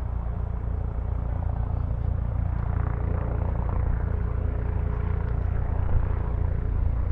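Bell 429 twin-turbine helicopter hovering low: a steady rotor beat under the whine of the turbines, growing gradually louder.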